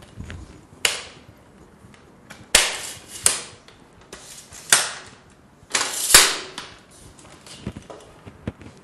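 Legs of a four-legged folding easel being extended one at a time: the leg sections slide out with a brief scrape and snap into place with sharp clicks, about five in all.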